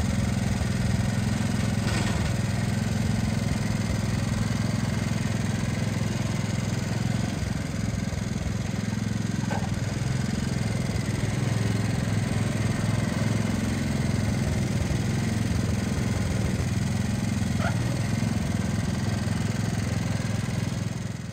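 John Deere 110 garden tractor's single-cylinder engine running steadily while the tractor is driven.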